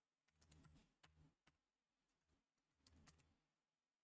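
Near silence with a few faint computer-keyboard key clicks, scattered and irregular, mostly in the first half.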